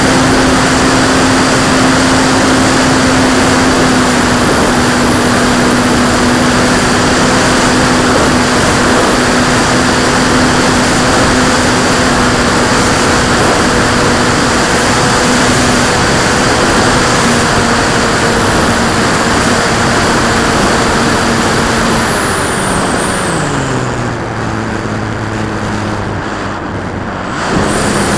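P-51 model aircraft's motor and four-blade propeller running at high throttle, with heavy wind rush from the onboard camera. About 22 seconds in the throttle is pulled back and the pitch falls and the sound quietens; just before the end it opens up again.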